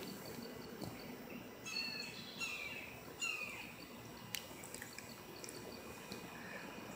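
A bird calling twice, each time a few short chirps that fall in pitch, about two and three seconds in, over a faint, steady evening insect chorus. A single sharp click comes a little after four seconds.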